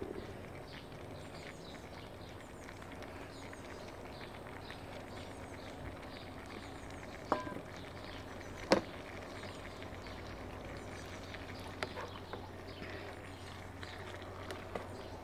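Birds chirping steadily in the background, with two sharp metallic clicks about seven and nine seconds in from a knife knocking against cookware. A few lighter clinks near the end come from a fork stirring in a steel pot.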